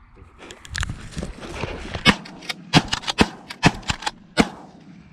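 Shotguns firing in quick succession at geese: about ten sharp shots in roughly three seconds, more than one gun emptied, after a rush of noise in the first second or two.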